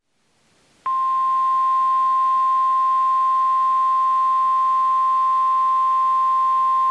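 NOAA Weather Radio 1050 Hz warning alarm tone: one steady high tone that switches on abruptly about a second in and holds without change, signalling that a new tornado warning is about to be broadcast.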